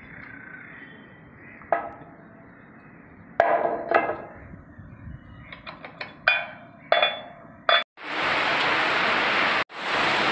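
Steel hand tools, a hammer and spanner, clinking and striking against the bolts of a piling rig's mast section: several sharp metallic hits with a short ring. About eight seconds in, heavy rain takes over as a loud steady hiss, cut off briefly once.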